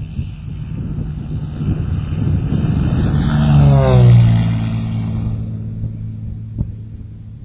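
Embraer Ipanema 203 crop-duster's piston engine and propeller in a low flyby. The sound builds to a peak about four seconds in, drops in pitch as the plane passes, then fades away. A single sharp click comes near the end.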